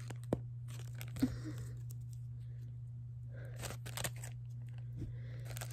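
A sticker pack's packaging being handled and opened by hand: scattered crinkling and tearing with a few sharp clicks, over a steady low hum.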